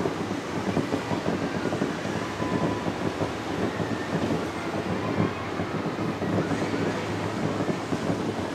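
Distant aerial fireworks going off in quick succession, their overlapping booms merging into a continuous rolling rumble like thunder.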